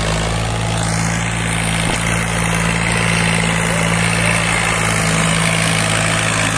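Tractor diesel engine running steadily at an even pitch while it pulls a trolley heavily loaded with sugarcane.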